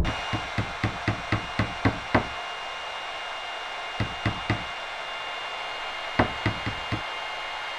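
Hammer blows on wood in quick runs: about eight knocks in the first two seconds, three more around the middle and four near the end, over a steady high ringing tone.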